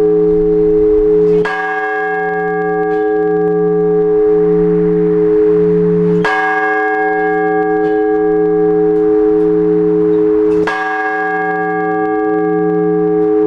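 One large Orthodox church bell struck slowly and evenly, three strikes about four and a half seconds apart. Each stroke rings on with a long tone and a low, wavering hum until the next. This is the measured single-bell ringing (blagovest) that calls the faithful to the all-night vigil.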